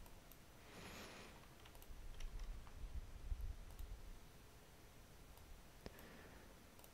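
Faint, scattered clicking, with a soft rush of noise about a second in.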